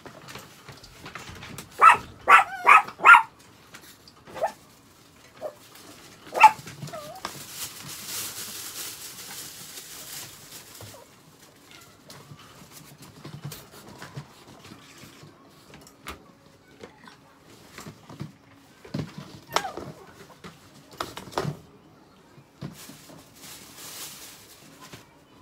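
Pet chihuahuas barking in short yaps: a quick run of four about two seconds in and a single one near six and a half seconds. A few seconds of rustling follows, with scattered knocks later.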